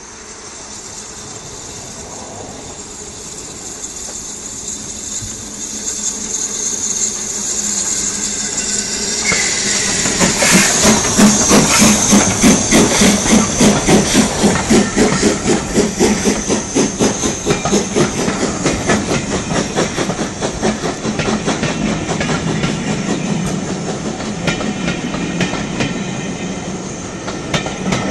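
Steam locomotive approaching and passing close by, growing steadily louder with a hiss of steam, then a rapid rhythmic pulsing at its loudest as the engine goes past. Its coaches follow, rolling by with a clickety-clack of wheels over the rail joints.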